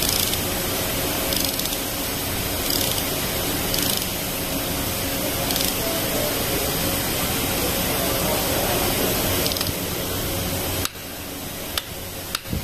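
Steady hiss of workshop noise, with a few faint clicks from a socket ratchet turning a bolt in a diesel cylinder head. Near the end the hiss drops suddenly and a few sharper clicks follow.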